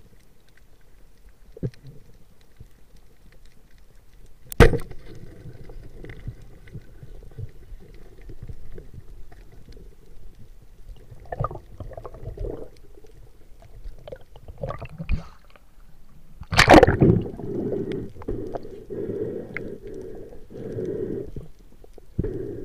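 Muffled underwater noise heard during a spearfishing dive, with scattered knocks and a sharp crack about four seconds in. The loudest event is a sharp crack with a ringing smear about two-thirds of the way through: the speargun firing at a small grouper.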